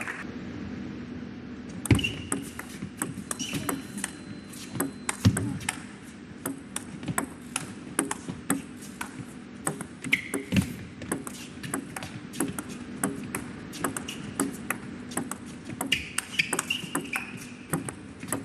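Table tennis ball clicking off the paddles and the table in quick succession through a long rally that starts about two seconds in. It is a patient exchange between a defensive chopper and an attacker, with a few short squeaks over a steady hall hum.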